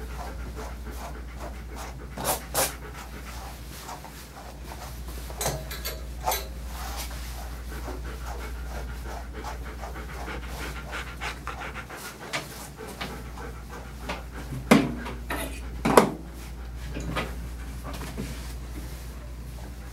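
German Shepherd panting steadily, broken by a few short sharp knocks, the loudest two about fifteen and sixteen seconds in.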